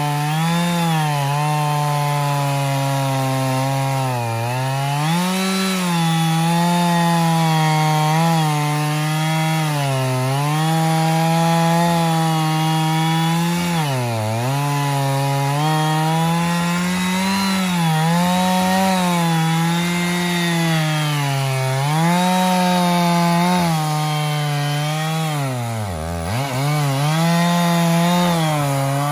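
Stihl 660 Magnum chainsaw on an Alaskan chainsaw mill, running near full throttle as it rips a log lengthwise. The engine pitch wavers with the load and sags sharply three times as the saw bogs in the cut.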